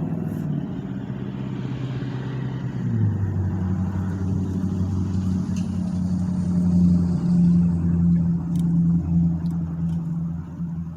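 A motor vehicle's engine running steadily, its pitch stepping down about three seconds in.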